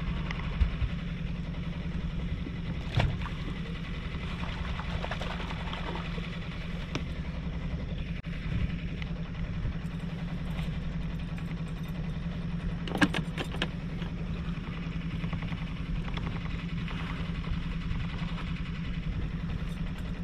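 Force outboard motor running steadily at low trolling speed. A sharp knock comes about 3 s in, and a quick cluster of clicks about 13 s in.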